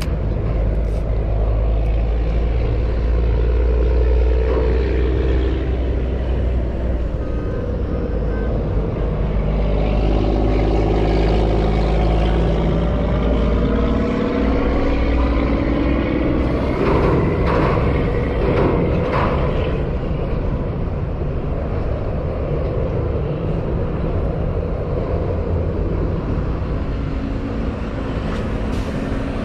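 Boat's outboard motor running under way, its pitch rising and falling as the throttle changes, with a few knocks about two-thirds of the way through.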